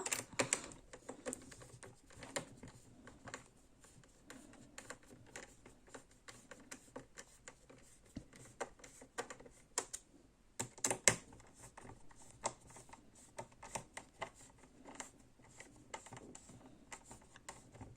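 Small, irregular plastic clicks and ticks as a toy's plastic battery compartment cover is fitted back on and its screw is tightened with a small screwdriver, with a few louder clicks about ten to eleven seconds in.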